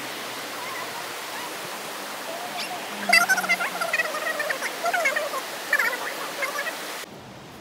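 Steady rushing of a mountain stream, with faint, indistinct voices from about three seconds in. The rushing drops suddenly near the end.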